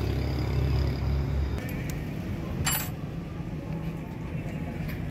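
Low, steady rumble of a nearby motor vehicle's engine that drops away about a second and a half in, with a single sharp click a little past the middle.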